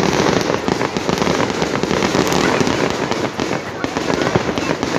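Fireworks going off in a loud, dense crackle of rapid pops that never lets up.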